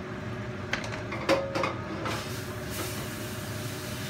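A few knocks of a wooden spatula on the bowl and pan as diced tomatoes are scraped into a frying pan of hot oil, then a hiss of sizzling that builds from about two seconds in.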